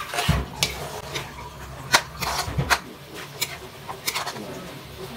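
A spatula scraping and knocking against a wok while pork, liver and sliced hot dog are stirred, in irregular strokes, the loudest about two seconds in.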